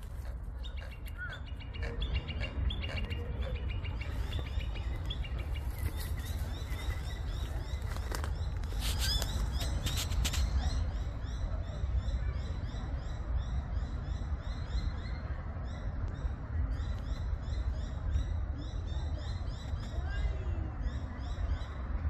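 Small birds chirping, a steady stream of short, rapidly repeated high calls that thickens about halfway through, over a constant low rumble.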